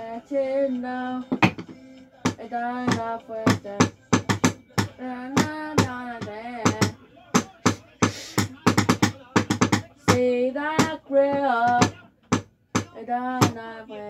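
A solo voice singing long, wavering notes between many sharp percussive clicks and knocks that keep an uneven beat, with no band behind it.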